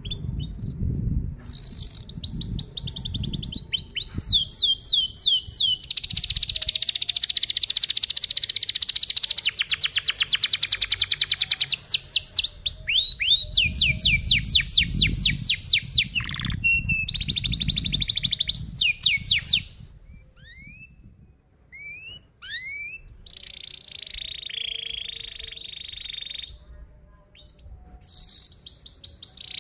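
Domestic canary singing a long song of fast, tightly packed trills (rolls) and quick rising chirps, the densest rolling in the first two-thirds. After that it turns quieter and sparser, with separate rising chirps and short trills. A low rumble sits under parts of the song.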